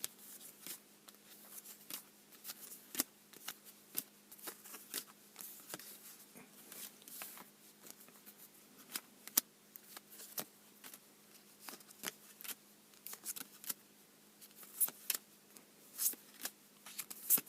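Yu-Gi-Oh trading cards being handled and flipped through: a string of irregular light clicks and flicks as cards slide and tap against each other, over a faint steady hum.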